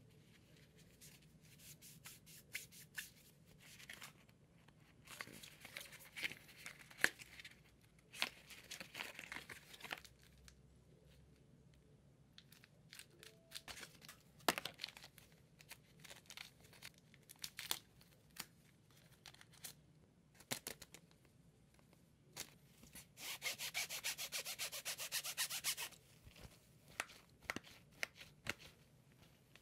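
Faint handling of smartphone box contents by gloved hands: rubbing and rustling of plastic packaging and scattered light clicks and taps as a charger and a clear plastic phone case are lifted from the box tray. A rapid crackling rasp lasts about three seconds near the end.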